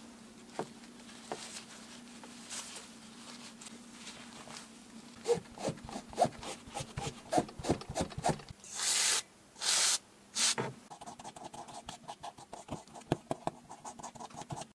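A cloth rubbing and scraping over a small electric motor rotor handled in gloved hands, with scattered clicks. There are three louder swishes about nine to ten and a half seconds in, then a run of quick small scratching ticks in the last few seconds as a cotton swab works over the rotor's plastic fan.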